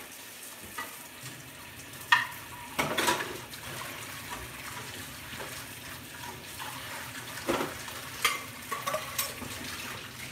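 Kitchen tap running into a sink as a cooking pan is rinsed out, with a few sharp clanks of the pan against the sink.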